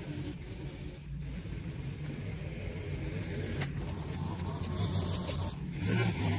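Stihl string trimmer engine running steadily as its line edges grass along a concrete curb, getting louder near the end.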